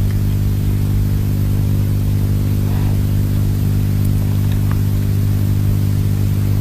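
A steady low hum with several even overtones, under a layer of hiss and a few faint ticks.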